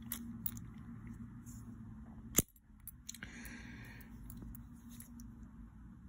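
Stanley CD8820 padlock handled, giving small metallic clicks and one sharp click about two and a half seconds in.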